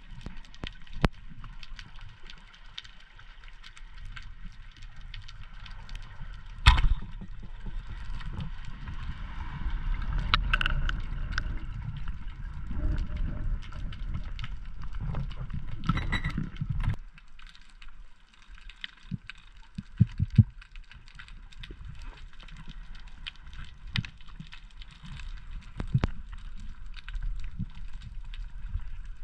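Underwater sound picked up by a diver's camera: a muffled rumble of water movement with scattered small clicks and crackles, and one sharp loud crack about seven seconds in.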